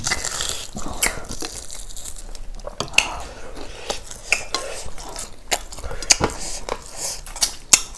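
Eating sounds from two people eating with their hands: chewing and mouth sounds, and fingers mixing and scraping food on ceramic plates, with scattered sharp clicks.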